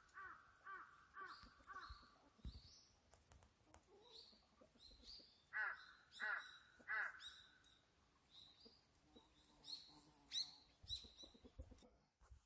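A crow cawing in runs: five caws in the first two seconds, then three louder ones about six seconds in. Smaller birds give short high chirps in between.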